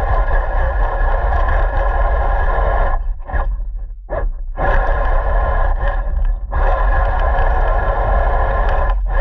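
Radio-controlled car running, its motor a steady even-pitched noise over a deep rumble, cutting out for over a second about three seconds in and briefly again past six seconds.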